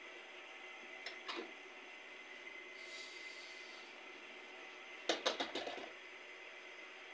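A person moving about a small room and handling things: a couple of soft knocks just after a second in, then a quick run of clicks and knocks about five seconds in, over a faint steady hiss.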